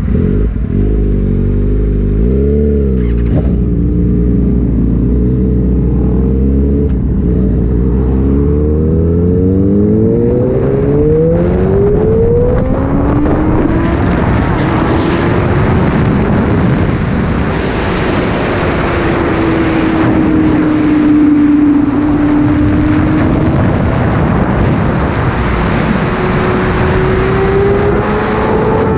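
Sport motorcycle engine running at low revs, then accelerating with its pitch climbing around ten seconds in. After that it is riding at speed, with heavy wind rush over an engine note that sags and rises again near the end.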